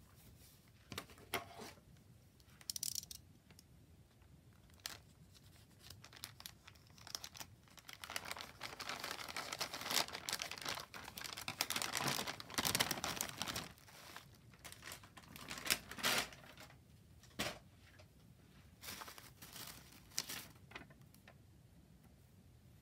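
Plastic mailer bag crinkling and rustling as it is opened by hand, with a long continuous tearing stretch in the middle, then a sheet of foam wrap rustling as it is pulled out. There are scattered sharp crinkles and snaps throughout.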